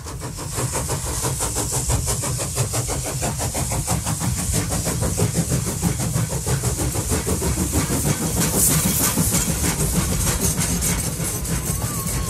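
An engine running steadily with a fast, even beat and a hiss over it, swelling up over the first second or two.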